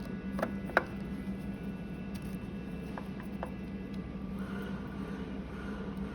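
A few small clicks of a screw and screwdriver being worked at a UV printer's printhead as the fixing screw is fitted: two close together under a second in, the second the loudest, and two fainter ones about three seconds in. A steady electrical hum runs underneath.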